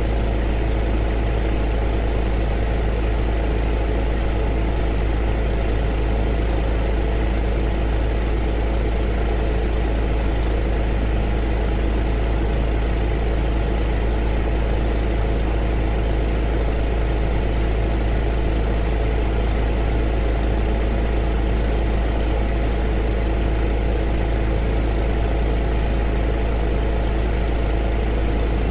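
Heater running steadily: an even blowing hiss over a strong low rumble and a steady hum with several tones, unchanging throughout.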